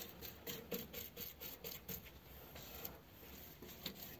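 Paintbrush dabbing and brushing thick red paint onto welded steel floor panel: faint, quick scrubbing strokes, several a second.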